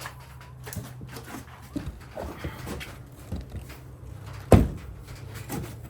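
Scattered knocks and clatter of objects being moved about, with one loud thump about four and a half seconds in, over a faint steady low hum.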